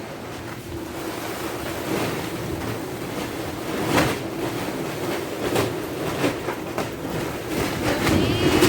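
Strong storm wind gusting and buffeting the microphone, rising and falling, with sharp gusts about four seconds in and near the end.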